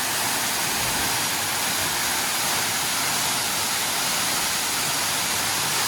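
Large waterfall pouring: a steady, even rush of falling water.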